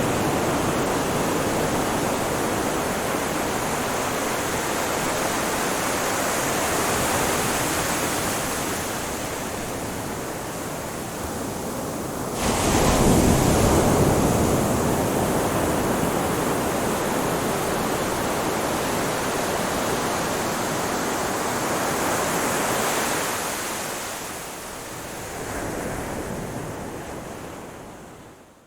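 Ocean waves washing onto a shore: a steady rush of surf, with a louder wave breaking about twelve seconds in. Near the end the sound fades away.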